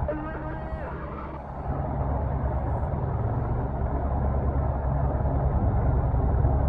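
Helicopter running close by: a steady, loud rotor and engine drone with a fast low beating from the blades.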